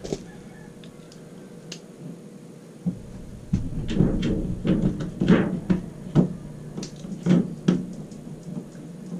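Irregular knocks and clicks of plastic parts being handled and pressed into place at an RV roof vent opening, with the busiest run from about three seconds in to near the end.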